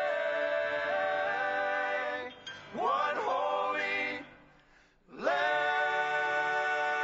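Male vocal group singing long held chords without words at the close of a gospel song. The chord breaks off about two seconds in, a shorter phrase slides in pitch, and after a brief gap another long chord is held.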